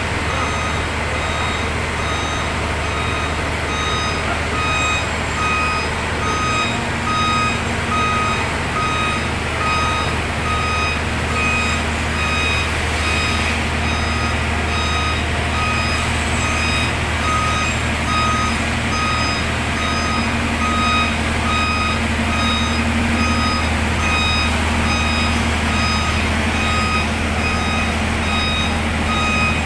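A heavy machine's backup alarm beeping in a steady, even rhythm over a diesel engine running.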